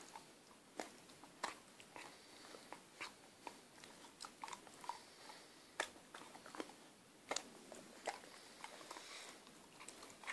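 Akita puppy chewing and smacking its mouth on sticky food: irregular wet clicks and smacks of jaws and tongue, a few a second, the sharpest about six seconds in.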